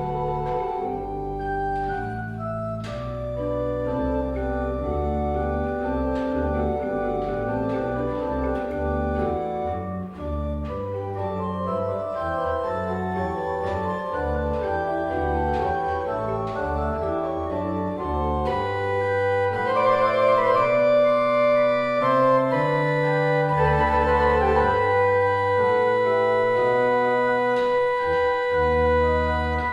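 Organ music: sustained chords with a moving bass line, growing fuller and louder about two-thirds of the way through.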